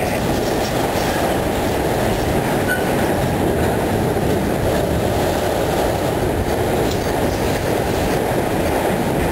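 A CSX freight train's enclosed autorack cars rolling past, with a steady, even rumble of wheels on rail.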